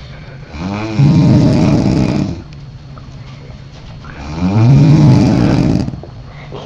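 Woman snoring: two long, loud snores about four seconds apart, each opening with a rising tone and turning into a rasp. A steady low hum runs between them.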